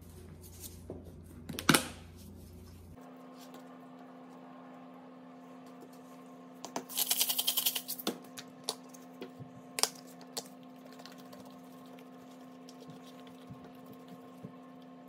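Seasoning shaken from a spice jar onto raw chicken: one dense, rapid rattling burst lasting about a second, among a few scattered clicks and knocks of jars, over a steady low hum.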